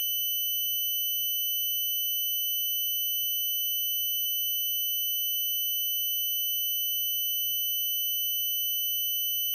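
A steady, unbroken high-pitched electronic tone, with fainter higher tones above it and a faint low hum beneath.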